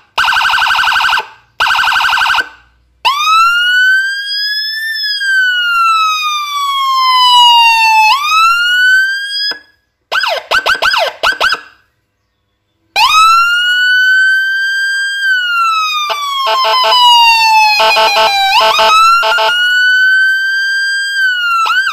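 Custom 200-watt siren module with a Whelen HHS3200 tone chip, cycling through its tones on a siren speaker. It opens with two short buzzy blasts, then a long wail that rises and falls, a burst of quick chirping yelps, and a second wail broken by rapid pulsing near the end.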